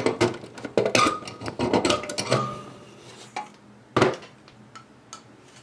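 Clicks, scrapes and knocks of a Sensus iCon electric meter with its clear plastic globe being handled and pulled from its meter socket, with a short squeak in the first couple of seconds. A single louder knock about four seconds in as the meter is set down.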